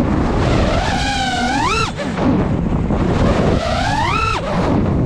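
FPV quadcopter's brushless motors whining, the pitch climbing and falling with throttle punches twice, each rise ending in a sudden drop, over steady wind rush on the onboard GoPro microphone.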